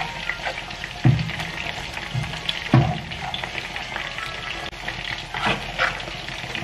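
A fork stirring and scraping a béchamel of butter-flour roux and milk in a hot frying pan, with a steady sizzle. A few dull knocks come from the fork striking the pan in the first three seconds.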